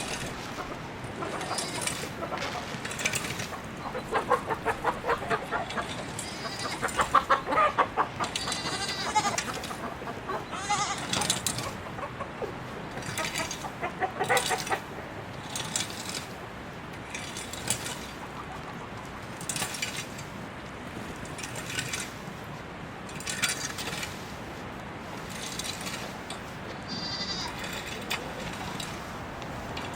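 Farm animals calling in short, repeated bleat-like or squawk-like calls, busiest in the first half, with scattered sharp clicks and knocks.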